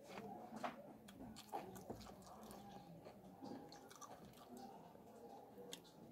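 Close-miked mouth sounds of chewing a mouthful of rice and chicken, faint, with scattered small clicks and a bite into a chicken leg near the end.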